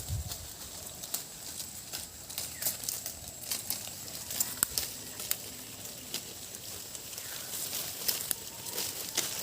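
Sheep grazing: irregular crisp snaps and clicks of grass being torn off and chewed, over a faint steady high-pitched tone.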